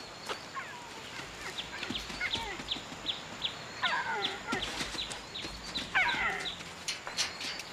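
Animal calls: a run of short, high chirps about twice a second, with a few falling squealing calls around four and six seconds in.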